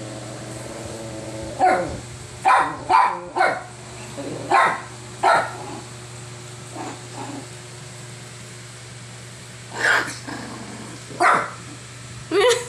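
Small dog barking in short, sharp barks: six in quick succession in the first few seconds, then a few more spaced out near the end. An adult dog scolding a puppy.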